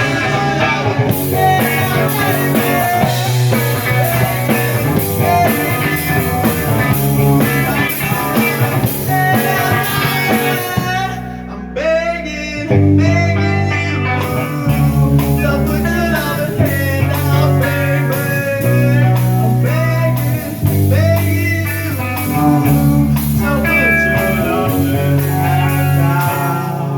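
Rock band playing an instrumental passage: electric guitar lead with bending notes over bass and drums. About eleven seconds in the band drops out briefly, then comes back with heavier bass.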